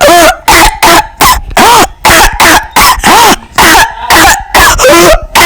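A person coughing in a long, unbroken fit of about a dozen loud, short coughs, roughly two a second. Some coughs carry the voice with a pitch that rises and falls. It is a sick person's coughing fit.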